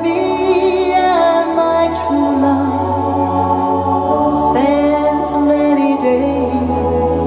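Live Celtic band music: a woman sings a held melody with slow pitch glides at the microphone, over keyboard and bass accompaniment.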